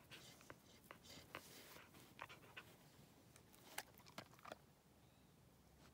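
Near silence, with the faint panting of a Finnish Lapphund sitting close by and a few soft scattered ticks.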